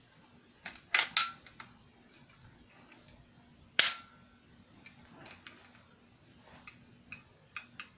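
Daisy Red Ryder BB gun's cocking lever being worked: a couple of sharp metal clicks about a second in, a single loud snap with a brief ring near four seconds, then lighter clicks and rattles.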